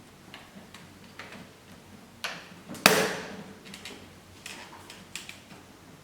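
Handle connectors being fitted to a beauty treatment machine: scattered light clicks and knocks, with a sharper click a little over two seconds in and the loudest clack about a second later.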